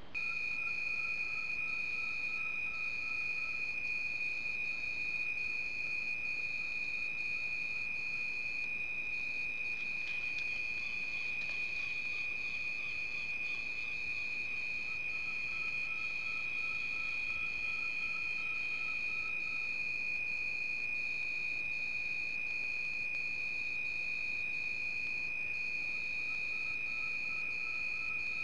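Night insects calling: a steady, unbroken high-pitched tone, with fainter pulsing notes above it repeating about one and a half times a second.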